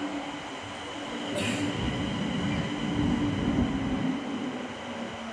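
CRH high-speed electric trainset rolling slowly past along the platform: a steady hum with a low rumble from the wheels and running gear that swells about two seconds in and eases off near the end. A short hiss comes just over a second in.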